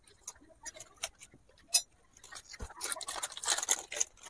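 A few light, scattered clicks, then from about halfway a dense crinkling and crackling as dry Maggi instant noodles are crumbled out of their plastic packet.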